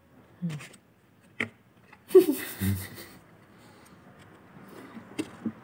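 Eating noises at a table: a few sharp mouth and lip clicks, and about two seconds in a short, loud, breathy vocal sound from one of the eaters.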